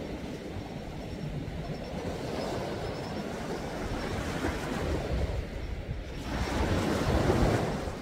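Sea waves washing onto the shore in a steady hiss, with a larger surge swelling up about six seconds in and peaking near the end before it ebbs.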